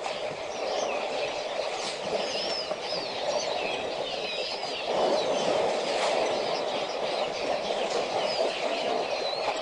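Many birds calling at once in quick, overlapping chirps and twitters over a steady rushing background noise.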